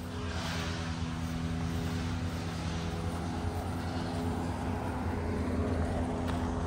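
Motor vehicle running steadily: a low engine hum with a hiss of tyre and road noise that swells about half a second in.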